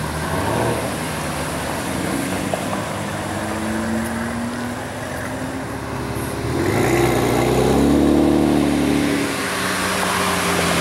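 Two sports cars driving slowly past in turn: first a BMW M4's engine running at low revs, then a Ferrari 458 Spider's V8, the loudest part. Its pitch rises as it picks up speed about two-thirds of the way in, then eases off as it rolls up close.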